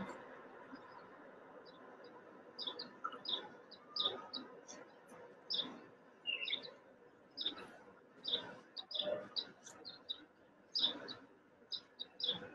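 Faint birds chirping in short, irregular calls, part of a recorded outdoor soundscape played back over a video call.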